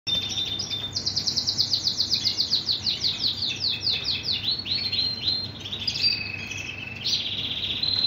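Shirazi canary singing a continuous song: fast runs of repeated high notes at about nine a second, slowing to broader rolled notes around the middle, then a lower held note and a steady high trill near the end.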